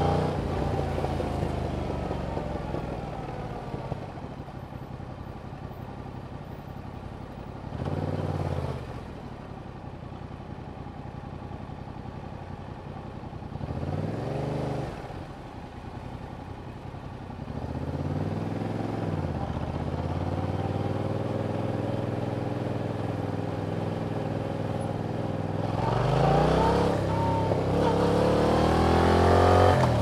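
A 2021 Yamaha MT-07's parallel-twin engine running through its stock exhaust. The revs fall away at the start, then rise and fall briefly a few times (about eight, fourteen and eighteen seconds in). It holds a steady cruise from about twenty seconds, then pulls up through the revs near the end, which is the loudest part.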